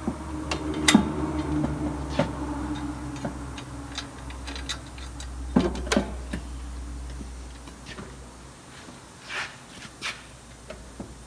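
Scattered clicks and light knocks as an aftermarket taillight housing is handled and fitted into place on the body, over a steady low hum that stops about two thirds of the way through.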